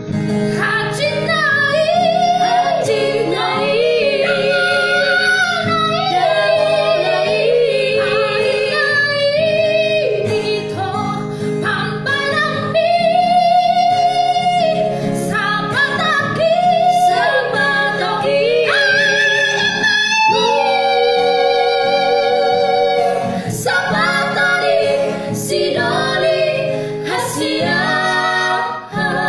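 A Batak woman singing a melody with strong vibrato and several long-held high notes, over a guitar accompaniment.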